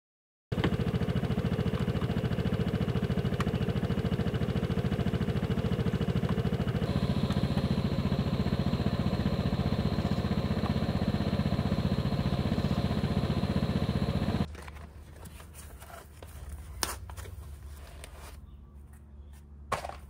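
Vespa LX scooter engine idling steadily, stopping suddenly about fourteen seconds in. After it, quiet handling noise with a couple of sharp clicks.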